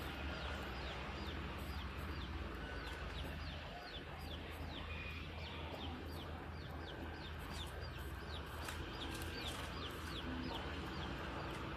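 Low, steady diesel engine rumble from the dump truck and earthmoving machinery, with a bird calling over it: short falling chirps repeated about twice a second.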